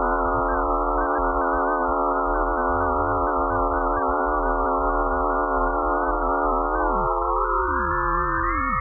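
Eerie electronic drone of many steady, slightly wavering tones stacked over a low rumble, billed as a sonification of Pluto's magnetic field and radio waves. About seven seconds in, the lower tones slide downward while the upper ones glide up in pitch.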